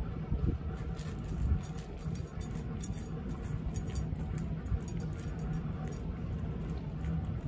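A cat crunching dry kibble from a metal dish: a run of quick, crisp crunches and clicks over a steady low rumble of background noise.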